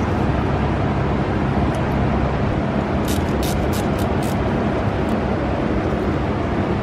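Steady low rumble and hiss of background noise, with a quick run of about five or six sharp clicks around three to four seconds in as a radiator hose clamp is fastened onto the hose.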